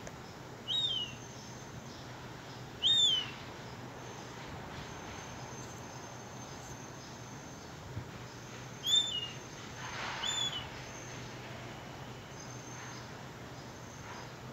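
Juvenile herring gull giving short, high, down-slurred whistled calls: two in the first few seconds and two more about two-thirds of the way through.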